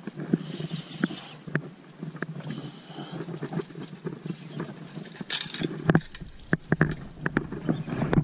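Lure casting and retrieving from a small open boat: scattered clicks and knocks of the rod, reel and feet on the hull, with a short hiss about five seconds in, over a low steady hum.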